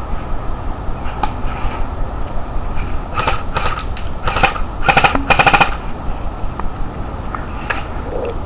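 Battery-powered airsoft AK-47 replica firing on full auto in four short bursts of rapid clicking shots, the last two longest and loudest.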